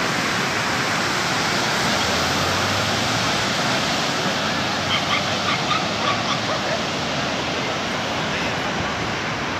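Surf breaking on a sandy beach, a steady rushing wash of waves. A few brief high calls cut through about five to six seconds in.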